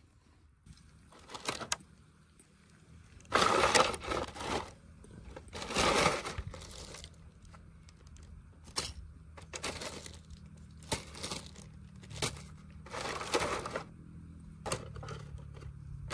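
Plastic packaging being handled: irregular crinkles and rustles of plastic bags and a plastic tray as items are lifted out and set down, loudest about three to six seconds in. A faint steady low hum runs underneath.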